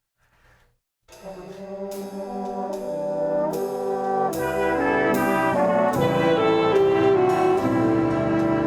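After a brief pause, brass-led instrumental music begins about a second in, sustained chords that swell from soft to full over the next few seconds.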